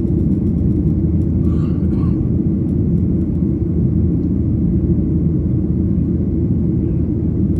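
Steady low rumble of jet engines and rushing air heard inside an airliner cabin during the climb after takeoff.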